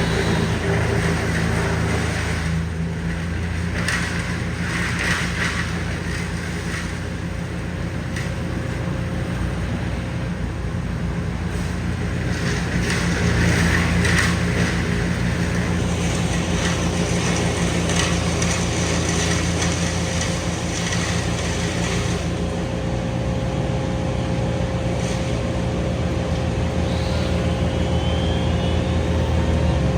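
Heavy machinery engine running steadily at a constant pitch, with a low, even hum.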